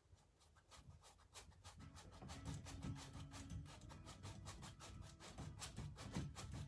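Paintbrush stroking quickly back and forth on a canvas, a fast run of short scratchy strokes at many per second, blending paint. It starts faint and grows louder over the first couple of seconds.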